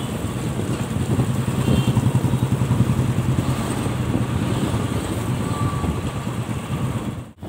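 Motorcycle engine running steadily under way in traffic, with road and wind noise; the sound drops out abruptly for a moment near the end.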